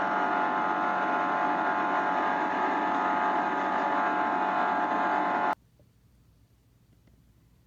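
Steady drone of an airliner in flight, a dense hum with several fixed tones, cutting off suddenly about five and a half seconds in.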